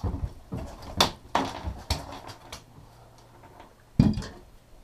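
Sharp knocks and clatter on a fishing boat's deck as fish and gear are handled. The loudest knock comes near the end, over a faint steady low hum.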